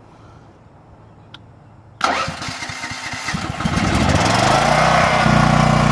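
Champion generator's small engine starting about two seconds in: it fires unevenly for a second or so, picks up speed, and settles into steady running. It is running again after its stuck intake valve was freed and its carburetor repaired.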